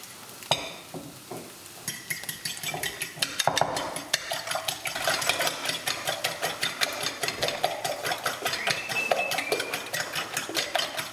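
Eggs being beaten by hand in a ceramic mixing bowl: the utensil clicks against the bowl in quick, even strokes, several a second, starting about two seconds in.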